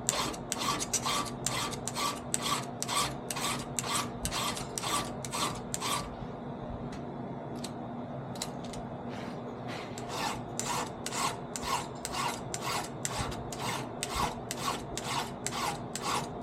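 Hand file rasping across a chainsaw chain held in a chain vise, quick even strokes about three a second. The strokes stop for about four seconds midway, then resume.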